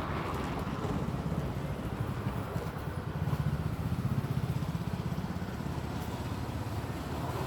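A motor vehicle's engine running close by, a low pulsing rumble that swells about three to four seconds in and then eases off.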